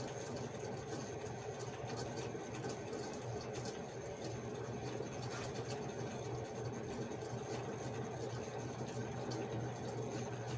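A steady low hum throughout, with faint, scattered soft ticks and rustles from a stuffed felt doll being hand-stitched closed.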